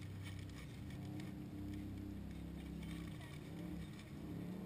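Low drone of distant engines, with its pitch shifting now and then.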